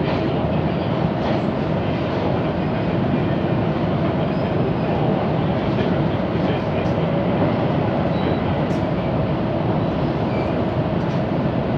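Running noise of a Mitre line Tigre-branch commuter train heard from inside the carriage: an even rumble with a steady hum and a few faint ticks.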